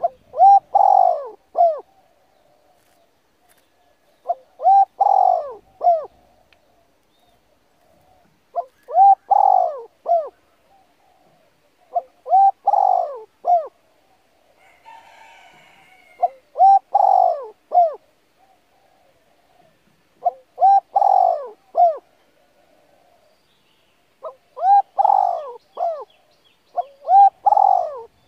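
A bird calling in repeated phrases of several arched notes, one phrase about every four seconds, with a fainter steady warble between them.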